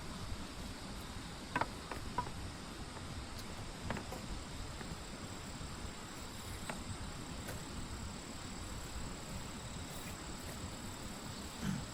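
Insects, crickets or the like, trilling steadily in one thin high tone, with a few scattered light knocks.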